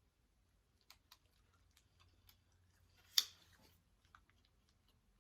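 A few faint clicks, then one sharp crunch about three seconds in as a chocolate bar with crunchy peanuts is bitten, followed by faint chewing.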